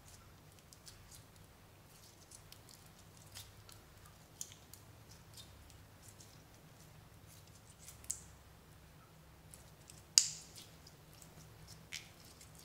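Slime being squished and stretched by hand, giving faint sticky clicks and small pops, with one sharp pop about ten seconds in.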